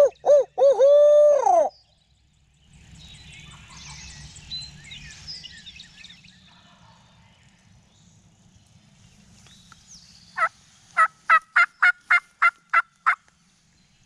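Bird calls in dawn woods: a loud owl-like hoot right at the start, faint birdsong after it, and near the end a quick run of about nine turkey yelps, some three a second.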